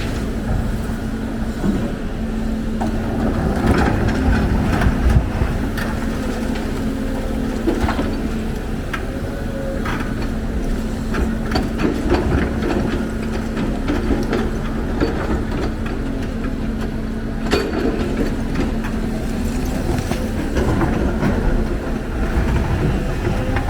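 Heavy diesel machinery running steadily, with a held engine hum and scattered metallic clanks and knocks throughout.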